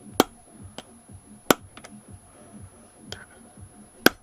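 Hammer striking a long tool set in the bottom bolt of a Yamaha Virago front fork leg, to shock the bolt loose. There are three sharp, loud strikes: near the start, about a second and a half in, and just before the end, with a few lighter taps between.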